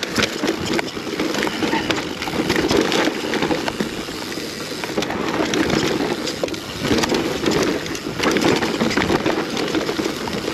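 Mountain bike descending a rough enduro trail: tyres running over dirt, roots and rocks, with a constant rattle and clatter from the bike.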